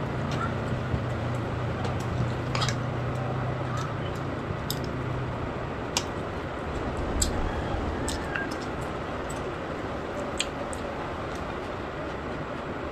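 A person eating noodles and crab, with chewing and scattered sharp clicks and cracks. A low hum underneath stops about five seconds in.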